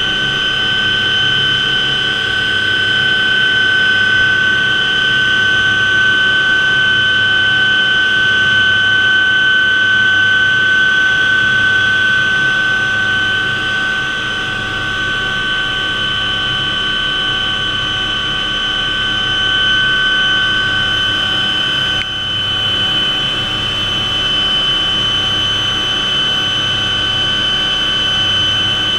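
Hughes OH-6A Cayuse (Loach) helicopter in cruise flight, heard from inside the cockpit. The Allison T63 turboshaft gives a steady high whine over a low, evenly pulsing rotor and airframe rumble.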